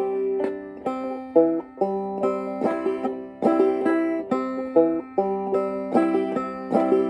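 Five-string Deering Goodtime banjo played clawhammer style: a steady rhythm of plucked notes and brushed strums repeating a simple tune in a new key, a beginner's practice run.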